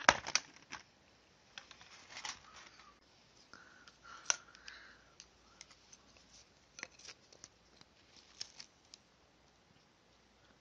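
Thin clear plastic lid of a takeout bento box crackling and clicking as it is pried open and handled. A run of sharp clicks and crinkles, loudest at the start and about four seconds in, thins out to a few light ticks.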